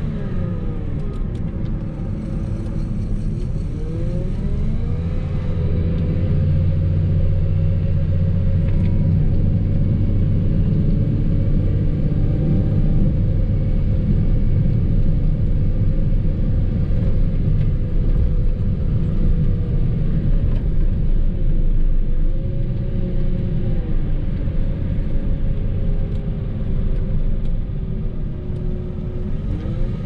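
Engine of a snow-plowing vehicle running steadily under load, with a higher whine that falls and rises in pitch now and then as the engine speed changes.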